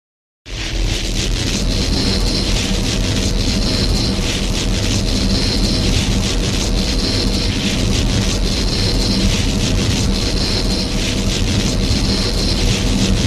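Film sound effect of a steady machine-like rumble. It has a deep low drone and a high tone that pulses about every one and a half seconds, and it starts about half a second in.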